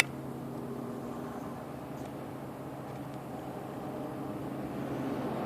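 Steady low background hum with an even rushing hiss, slowly growing louder near the end, with a single sharp click at the start.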